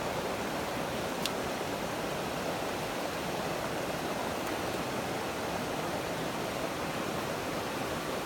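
River water rushing steadily, an even hiss of flowing water with a faint brief tick about a second in.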